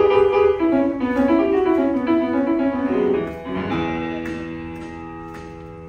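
Piano music: a run of quick notes that lands, about three and a half seconds in, on a held chord that slowly fades.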